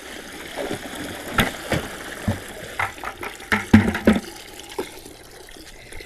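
Water running from a garden hose into a plastic 5-gallon bucket, with a string of sharp knocks and clunks through the middle, loudest a little past halfway.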